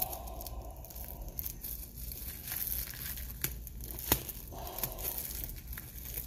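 Thin plastic wrapping crinkling and rustling as a comic book is handled, with a few sharp clicks.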